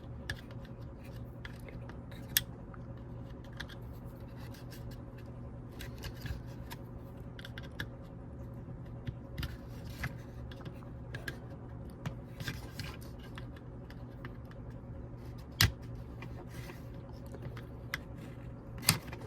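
Plastic clips and housing of a Mk3 VW Golf/Cabrio heater control unit clicking and scraping as it is pried apart by hand, with sharper snaps about two seconds in, about three-quarters through, and just before the end. A steady low hum runs underneath.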